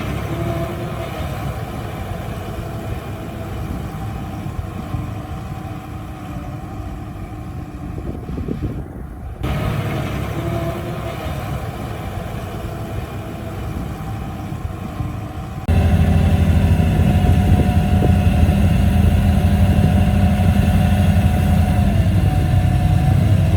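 Heavy earthmoving equipment's diesel engines running steadily, in three spliced clips. The sound changes abruptly twice, and after the second change it is louder and deeper.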